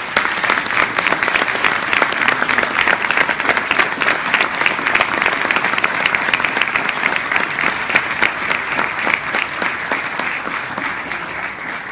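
Audience applauding: dense, steady clapping that starts suddenly and tapers off near the end.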